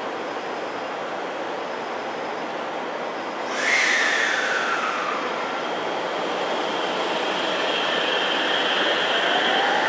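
JR Central 313-series electric train pulling out. Over a steady hum, a sudden hiss comes about three and a half seconds in. Then the traction motors whine, the tone falling and, near the end, starting to rise as the train gathers speed.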